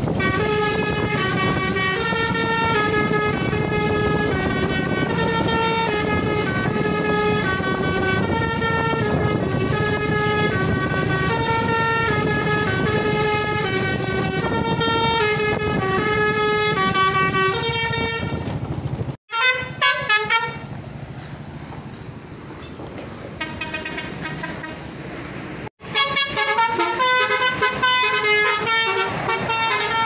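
Basuri V3 telolet horn on a bus playing a repeating multi-note melody, stepping quickly between pitches and held on for long stretches, over low traffic rumble. About 19 seconds in it cuts off sharply, a quieter stretch follows, and the melody starts again near the end.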